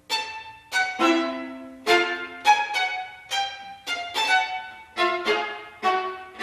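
String trio of violin, viola and cello playing contemporary chamber music: a run of separate sharp, accented notes, about two a second, each struck and left to ring and die away.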